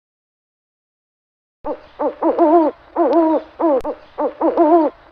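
An owl hooting. After about a second and a half of silence comes a quick run of short hoots, about three a second, each one bending in pitch.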